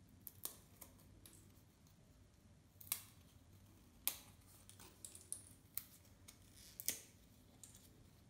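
Small pre-cut bits being popped out of a foam-board puzzle panel by hand: several short, sharp snaps and clicks at irregular intervals.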